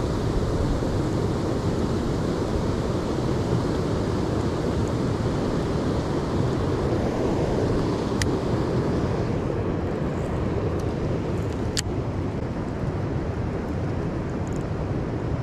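Steady wind noise buffeting the microphone, a low rumbling rush that holds level throughout, with a couple of short sharp clicks in the second half.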